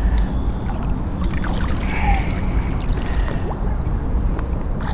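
Steady low rumble of wind on the microphone, with water splashing as a hooked carp is drawn in to the bank.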